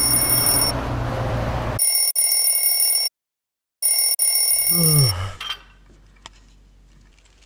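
Electronic alarm ringing in bursts of a little over a second with short gaps, over a noisy background for the first couple of seconds. About five seconds in the ringing stops, with a short low sound falling in pitch, and then only faint soft taps remain.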